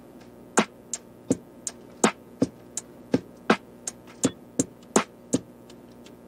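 Background music with a steady electronic beat: sharp drum-machine hits about three a second over a sustained synth tone.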